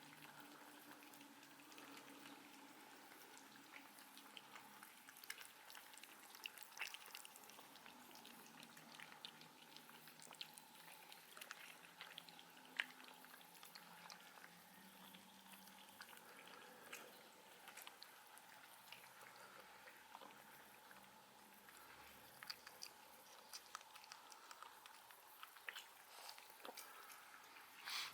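Faint, scattered small clicks and smacks of a cat chewing its food, over a faint steady hum; one sharper tick about halfway through.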